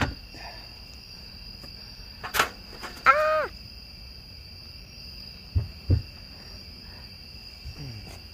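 Steady high trilling of night insects, with a sharp knock at the start and two dull thumps about five and a half and six seconds in as a man clambers onto a minivan roof. A short cry of "Ah!" about three seconds in.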